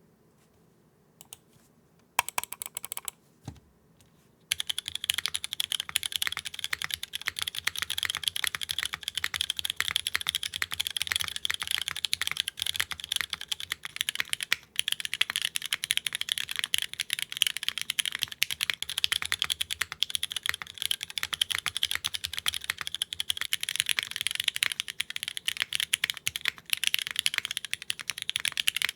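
Mechanical keyboard typing on a Hiney Ladybird with lubed, filmed, spring-swapped Cherry MX2A Black linear switches in a top-mount aluminium plate with no foam, and a Cilantro-switch spacebar. A few isolated key presses come first, then fast continuous typing from about four seconds in.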